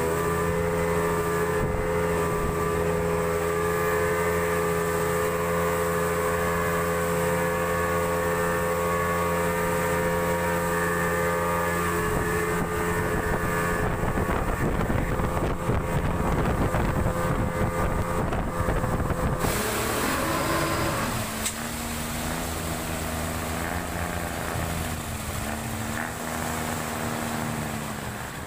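A 200 hp outboard motor drives a motorboat at speed with a steady drone. For several seconds midway a rushing hiss of wind and water joins it. About twenty seconds in the sound turns duller and the engine note shifts and wavers.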